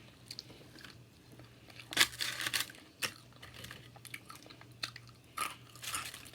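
Close-up crunching and chewing of a hot Cheetos-crusted, cream-cheese-filled popper: crisp crunches about two seconds in and again a second later, then a few more near the end, with soft chewing between.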